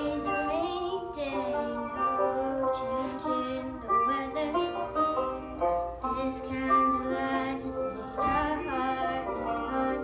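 A young girl singing into a handheld microphone over an instrumental backing track with plucked strings.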